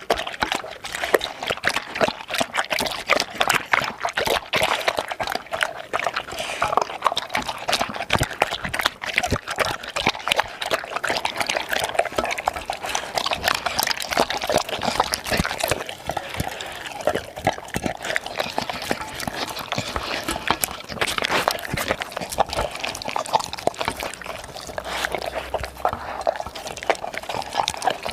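A dog lapping and slurping kibble soaked in liquid from a bowl: a rapid, continuous run of wet licks and clicks.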